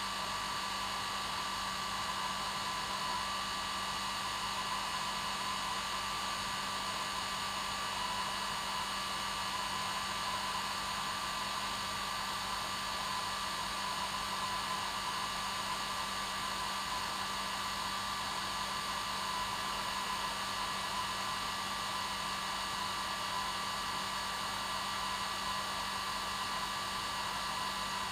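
Hair dryer running on its normal setting, a steady, unchanging rush of air with a constant motor hum.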